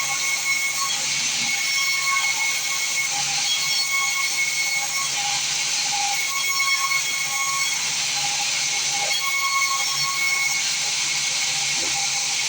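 Sawmill bandsaw running, a steady loud hiss with a faint high whine.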